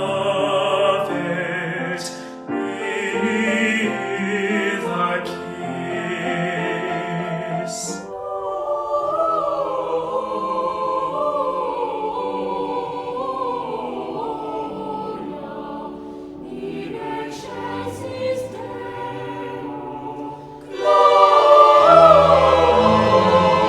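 Choir singing a slow Christmas carol in several parts. About eight seconds in it thins to a softer, gliding melodic line, and near the end a much louder, fuller passage comes in.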